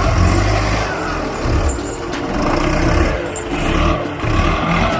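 Forestry skidder's diesel engine running hard and loud as the machine strains under a very heavy load of logs.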